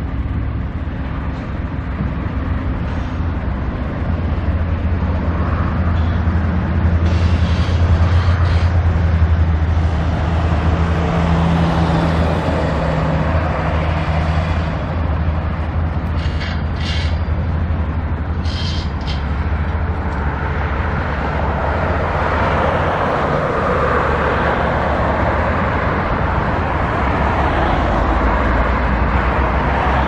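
Steady low rumble of vehicle engines, louder for a few seconds near the start and again through the second half, with a few short hisses about halfway through.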